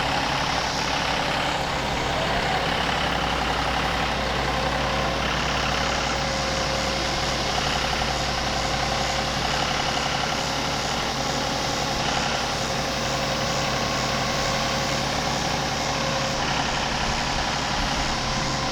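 John Deere tractor engine running steadily, a constant low engine note with no marked revving or pauses.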